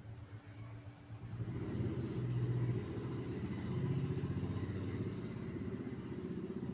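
A motor vehicle's engine running, growing louder about a second and a half in and fading away near the end.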